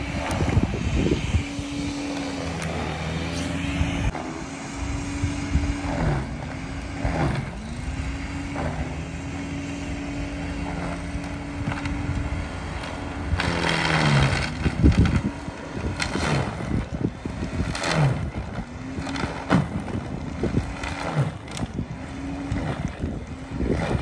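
Corded electric snow thrower running with a steady motor whine that sags in pitch each time it bites into deep snow, then recovers. Over it come scraping, rushing bursts of snow being churned and thrown, loudest about 14 seconds in.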